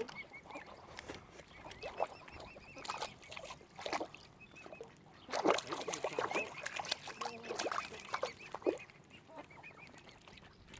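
Waterfowl calling: a run of short honking and quacking calls, loudest around the middle, over a thin, quickly repeated high peeping.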